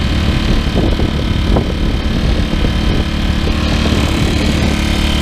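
Dirty Hand Tools 800-watt inverter generator's small engine running steadily with an even hum, freshly cold-started with the choke just taken off. Its sound is not too loud.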